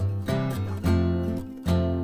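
Background music led by a strummed acoustic guitar, with a strum about every half second.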